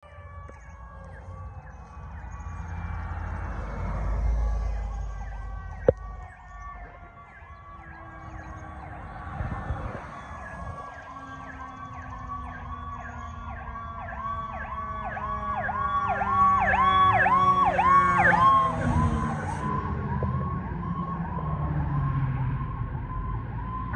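Fire engine siren (2014 Smeal Sirius pumper) in a rapid yelp, with a second, slowly falling siren tone beneath it, growing louder as the engine approaches and loudest about two-thirds of the way in. One sharp click about six seconds in.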